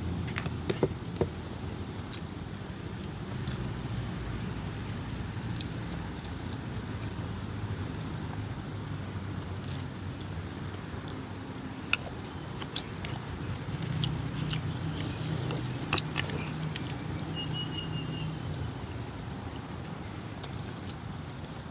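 Close mouth sounds of a man eating adobo of small birds, rail and quail, by hand: chewing with scattered smacks and crunches of the small bones, more of them in the second half. Under it a steady low rumble and a faint steady high whine.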